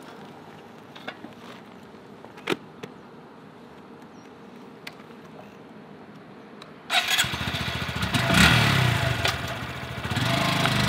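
A few light clicks, then about seven seconds in a Honda Grom's 125 cc single-cylinder engine starts and runs, its revs rising and falling.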